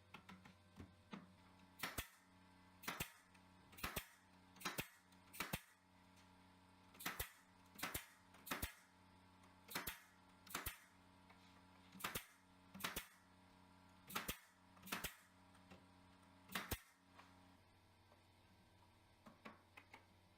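Nails being driven into pallet wood: about fifteen sharp bangs, spaced roughly a second apart, over a faint low hum.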